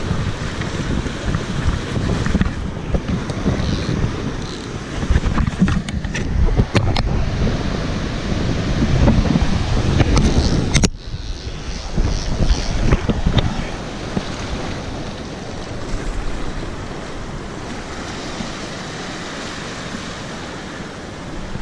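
Ocean surf washing and foaming in the shallows, with wind buffeting the microphone in gusts. The sound drops off abruptly about halfway through and carries on steadier and a little quieter.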